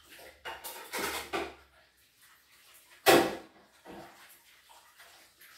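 Rustling and clattering handling noise, then a sharp knock about three seconds in, followed by a smaller knock.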